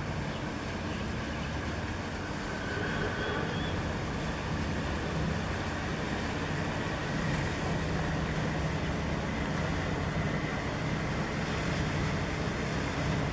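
Steady low drone and rushing noise of a large container ship passing close by, a little louder from about five seconds in.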